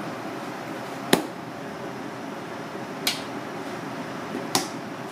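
Three short, sharp clicks about one, three and four and a half seconds in, the first the loudest, over a steady background hum in a small kitchen while sushi is being plated.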